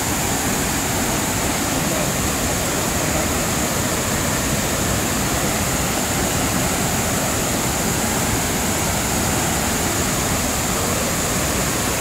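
Steady rushing of the large, tiered Tirathgarh waterfall, heard from close by as an even, unbroken wash of water noise.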